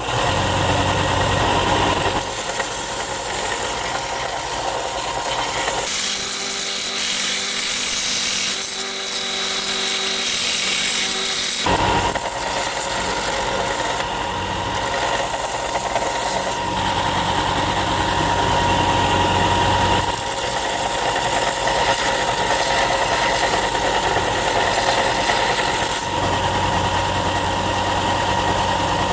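A power tool running with a steady motor whine and a rough rubbing noise as it works the rusted license plate. The sound changes for several seconds about a fifth of the way in, losing its low hum, then returns to the first pattern.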